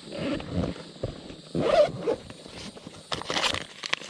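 Fishing tackle being handled: three short rasping strokes with small clicks, like a bag zipper being pulled, as lures are brought out. Insects chirp steadily behind.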